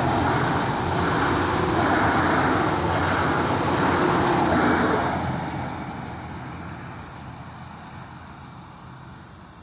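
Alstom Regiolis regional train passing at speed right beside the level crossing: a loud rush of wheels on rails that swells and eases several times as the cars go by. It then fades away steadily after about five seconds as the train recedes.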